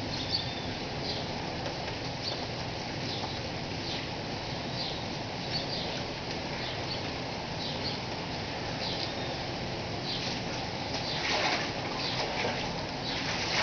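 Steady rain falling, with small birds chirping on and off over it and a louder rush of noise near the end.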